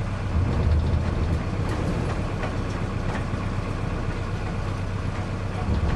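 A sailboat's engine running with a steady low drone under heavy wind rumble on the microphone in 25 knots of wind, during anchoring.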